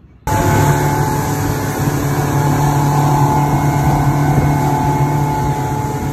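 An engine running steadily, cutting in suddenly just after the start and holding an even pitch.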